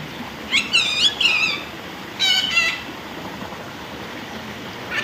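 Parrot calling with shrill, squeaky calls: a quick run of rising calls about half a second in, then two short calls a little after two seconds, and more calls starting at the very end.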